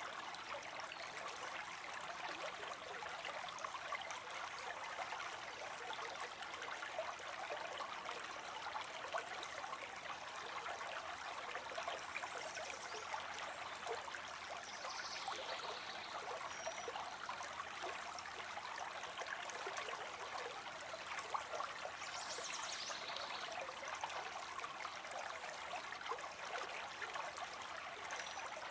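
River water flowing with a steady rush. A few short, high bird calls rise above it, one falling in pitch about halfway through and another a few seconds later.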